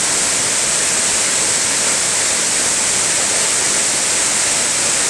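Waterfall in spate after heavy rain, its water pouring down in a steady, unbroken rush.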